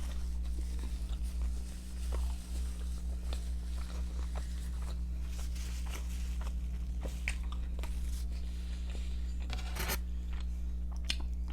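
Close-up eating sounds: chewing and biting food, with small wet clicks and crunches, over a steady low hum. One brief louder noise comes about ten seconds in.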